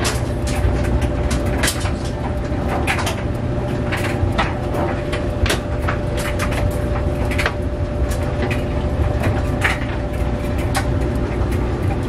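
Front-loading clothes dryer running: a steady motor hum and drum rumble, with irregular knocks as the clothes tumble in the drum.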